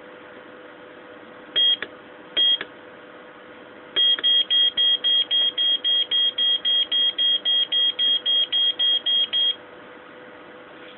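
Electronic button beeps from a SkyRC iMeter 7-in-1 battery meter as its keys are pressed: two single high beeps, then a fast even run of about twenty beeps, roughly four a second, as a button is held to scroll.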